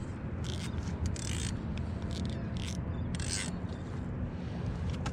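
Fishing reel being cranked to bring in a hooked Spanish mackerel: short scraping, mechanical bursts every half second or so over a steady low rumble.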